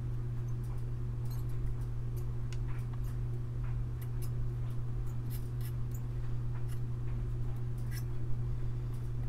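Soldering the pins of a small 8-way pin header onto a keyboard circuit board: scattered faint ticks and crackles over a steady low hum.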